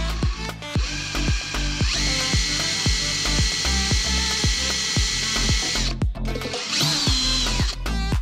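Cordless drill with a small bit running steadily for about four seconds, then briefly again near the end, boring a hole in a turbocharger's exhaust flange for a dowel pin. It is heard under background music with a steady beat.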